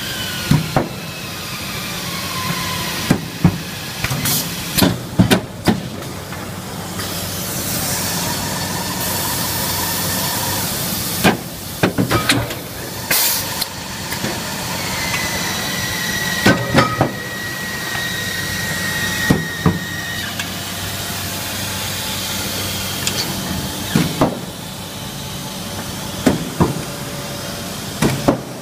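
Automated sheet-metal bending machine running through its cycle: a steady machine hum with motor whines that fall near the start and rise to a held pitch in the middle, loud stretches of air hiss, and repeated sharp metallic clanks as the tooling moves and bends the panel.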